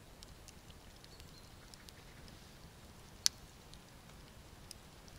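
Faint, scattered small clicks and ticks over a quiet outdoor background, with one sharp click a little past three seconds in.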